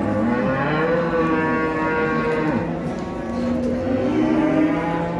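Several cattle mooing: long, overlapping calls at different pitches, one held high for about two seconds starting about half a second in, another rising near the end.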